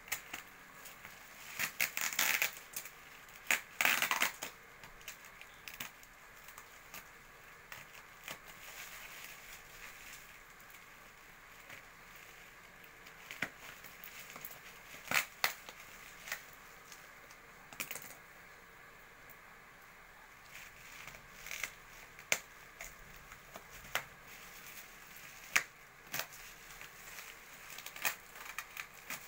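Bubble wrap and plastic packaging crinkling and crackling as it is handled and pulled off a parcel, in irregular rustles and sharp crackles, with louder bursts about two and four seconds in.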